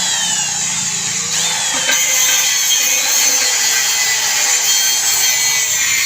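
Power drill boring into a broken exhaust bolt: a steady, high-pitched grinding of the bit cutting metal, with squealing tones that slide in pitch.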